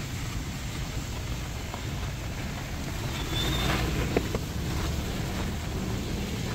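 Traffic on a rain-soaked city street: a steady low rumble of wind and rain, with a vehicle passing a little past halfway and a sharp click about four seconds in.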